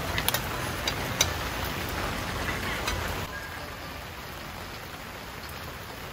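Steady rain falling, with a few sharp drop taps in the first three seconds; the rain gets a little quieter about three seconds in.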